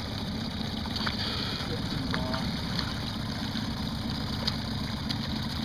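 Mercury outboard motor running steadily at low trolling speed, a constant low hum.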